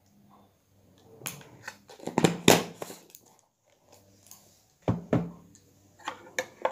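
A metal spoon clinking and scraping against a ceramic mug as milk powder is stirred into hot water, in several irregular bursts of sharp knocks, loudest a little over two seconds in.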